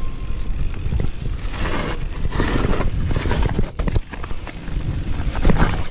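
Mountain bike rolling down a wet, muddy dirt trail: the frame, chain and suspension rattle and knock over the bumps, over a constant low rumble.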